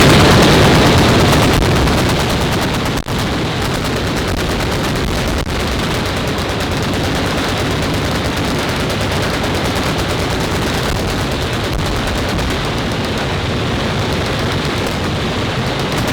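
Massed machine guns firing together along a range firing line: dense, unbroken, overlapping automatic fire with no gaps. It is loudest at the start and settles to a steady level after a couple of seconds.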